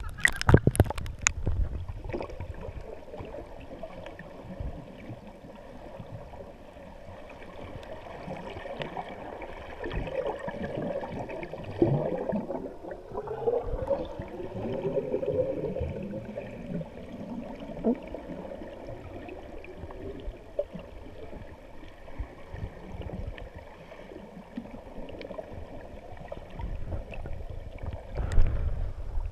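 Muffled underwater sound picked up by a camera below the surface: water moving and bubbling, with a few sharp knocks at the start and a busier stretch of splashing and bubbles in the middle as swimmers kick at the surface.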